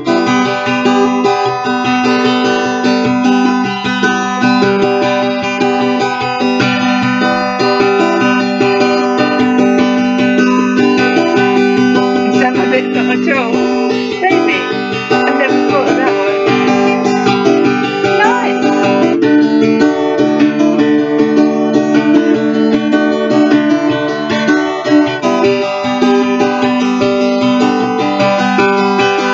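Acoustic guitar strummed in a steady rhythm, its chords ringing, with a change of chord about two-thirds of the way through.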